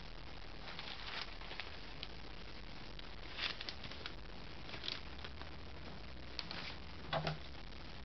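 Plastic postal mailing bag rustling and crinkling in short, scattered bursts as it is picked up and handled, with a soft knock near the end as it goes back down on the wooden table.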